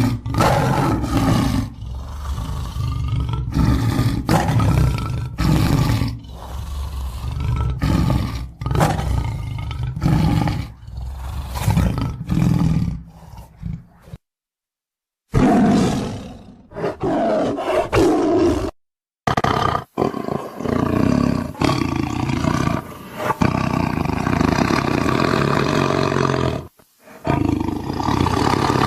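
Tiger growling and roaring in a run of repeated low, rough growls, with abrupt cuts to silence about 14 seconds in and again about 19 seconds in, where recordings are spliced together.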